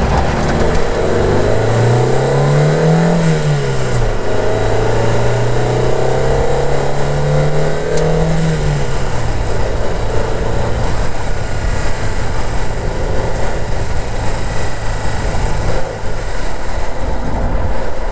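Car engine accelerating through the gears, heard from inside the cabin: the revs rise for about three seconds, fall at a gear change, climb again more slowly, and fall at a second change about nine seconds in. After that it settles into steady engine and road noise at cruising speed.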